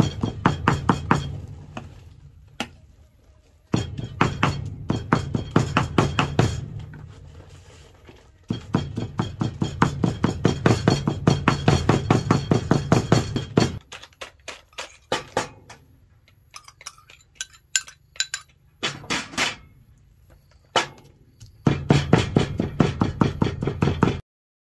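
Large kitchen knife chopping raw pork into mince on a thick wooden chopping block: rapid chops in runs of several seconds with short pauses, sparser around the middle, and a sudden stop near the end.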